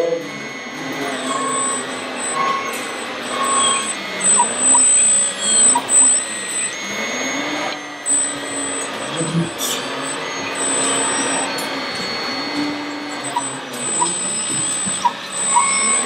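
Small motors of radio-controlled scale construction machines, including a tracked Liebherr 634 loader model, whining as they drive and work, the pitch rising and falling over and over. A few louder knocks come near the middle, over a background hum of voices.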